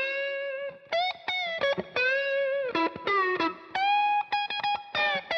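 Lead line on a 2018 Fender Classic 50s Stratocaster through a Vox AC15 tube amp: a string of single sustained notes, several pushed up in pitch by string bends and held notes wavering with finger vibrato.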